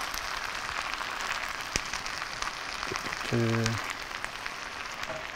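Risotto rice and freshly added stock sizzling in a hot frying pan: a steady hiss, with a couple of light knocks of the spoon against the pan.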